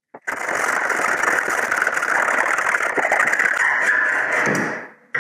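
Hacksaw with a high-carbon blade cutting steel, a steady rasping of the blade's strokes through the metal, with the blade freshly lubricated with cutting oil. It starts a moment in and stops shortly before the end.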